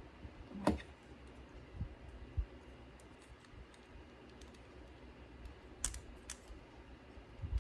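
Scattered light clicks and taps of small parts and tools being handled while working on a CD receiver's laser pickup mechanism, a few seconds apart, the sharpest about a second in, over a faint low hum.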